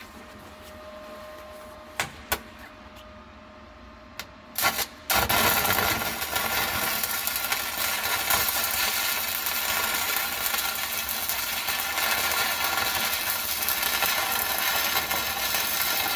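Stick (MMA) arc welding with a Hanshin HST-200MIG inverter welder set to about 93 amps. A few short clicks come first, then about five seconds in the arc catches and holds a steady crackling sizzle.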